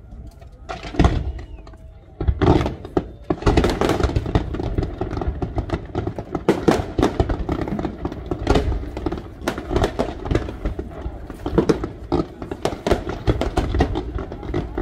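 Aerial fireworks shells bursting: a couple of single booms in the first two seconds, then from about three and a half seconds in a dense, continuous barrage of bangs.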